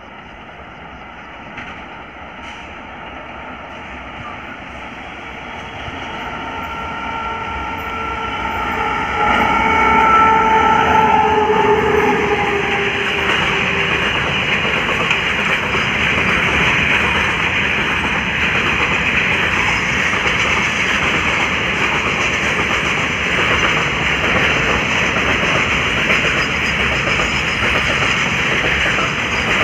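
WAG-9H electric locomotive and its container freight train approaching and passing at speed. The rumble grows louder for about ten seconds, with a few steady tones that drop in pitch as the locomotive goes by. Then comes the steady rumble and wheel clatter of the container wagons rolling past.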